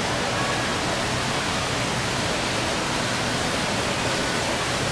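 Steady rush of water from an artificial waterfall in an indoor rock display.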